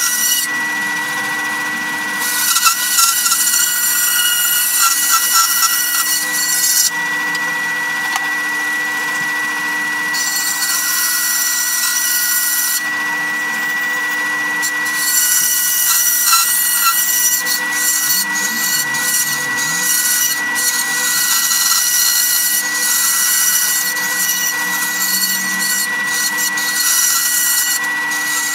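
Bandsaw running with a steady whine and hum, its blade cutting through a plywood sheet in three long stretches, with short breaks in the cutting about seven and thirteen seconds in.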